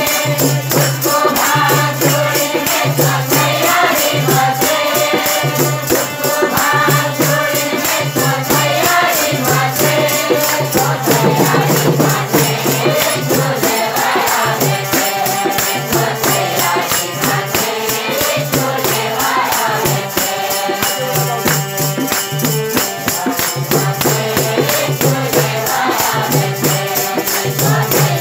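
Group of men and women singing a devotional bhajan in chorus, over a fast, even shaking rhythm from a jingling hand percussion instrument.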